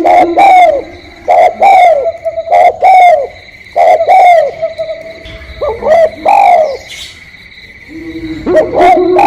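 Spotted doves (tekukur) cooing: repeated short phrases of low, arching coos, about one a second. They pause for about a second and a half near the end, then start again.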